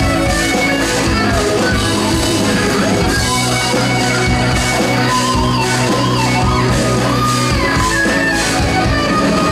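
Live rock band music led by a Les Paul-style electric guitar playing a lead line with bent notes over a steady rhythm section.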